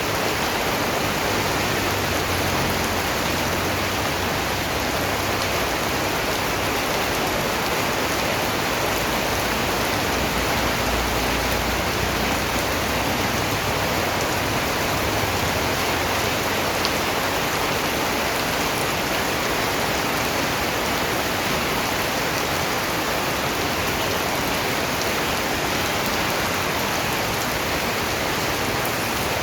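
Steady rain falling, an even hiss of drops on a surface with no change in level.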